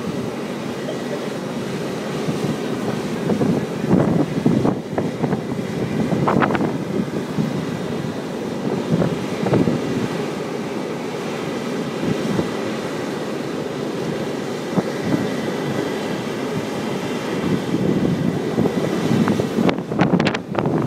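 Wind buffeting the microphone in gusts, over the steady running of a fire engine pumping water up its aerial ladder.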